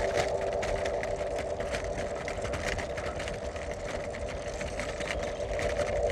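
Bicycle rattling over cobblestones: a dense, irregular clatter of small knocks. A steady mid-pitched held tone fades out over the first few seconds.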